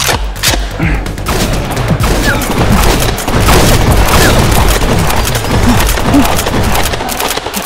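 Dense, continuous volley of gunshot sounds, shots overlapping without a break, getting louder about two seconds in: blaster fire in a Nerf fight, likely dubbed with video-game-style gun effects.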